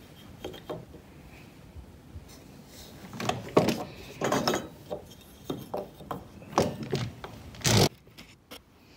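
Pieces of wood knocking and clattering on a wooden workbench as parts are set aside and a linden blank is fitted into the bench vise. A string of knocks starts about three seconds in, with a longer, louder knock near the end.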